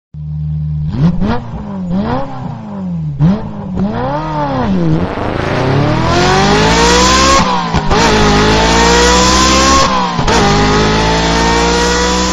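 Car engine sound effect: a few quick revs rising and falling, then accelerating through the gears in long climbing pitches that drop back at each shift.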